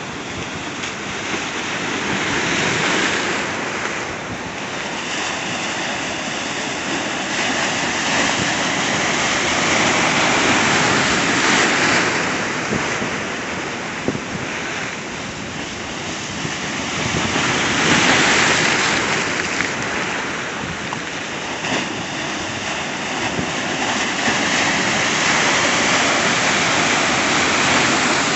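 Ocean surf breaking and washing against a rock jetty: a continuous rushing of whitewater that grows louder and falls back every several seconds as each wave comes in.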